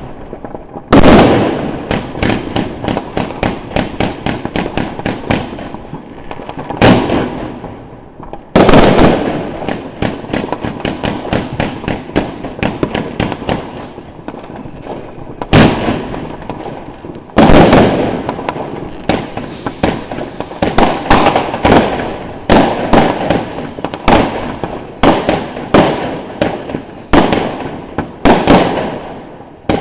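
Consumer firework battery (Panda 'Eruption' cake) firing shot after shot in rapid volleys: loud launch thumps and bursts with crackling, broken by brief lulls. Faint short falling whistles join in the second half.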